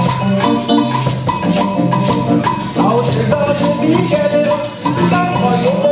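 Music with a steady percussive beat and held melodic notes.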